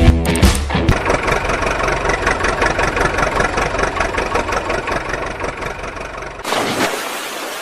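Engine running steadily with a fast, even rumble, changing to a noisier hiss near the end.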